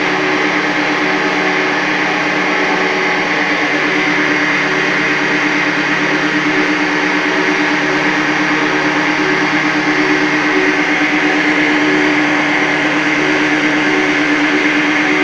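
Plastic recycling machinery running steadily: the electric motors and extruder of a mother-baby recycling plant give a constant drone with a hiss over it.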